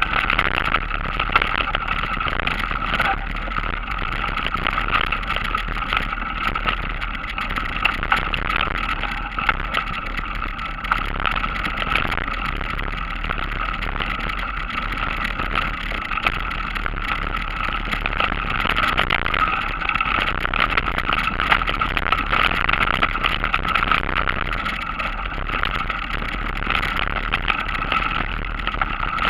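Trek X-Caliber mountain bike ridden along a rough forest dirt track, heard from a camera mounted on the bike: a steady running noise of tyres and drivetrain with many small rattles and clicks from the bumpy ground.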